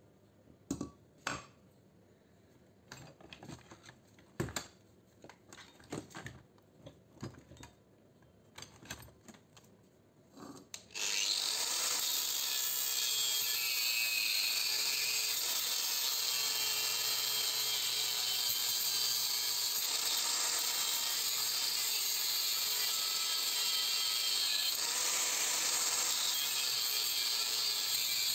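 Scattered light clicks and knocks of metal motor parts being handled on a steel bench, then, about eleven seconds in, a loud steady hissing noise starts suddenly and keeps going.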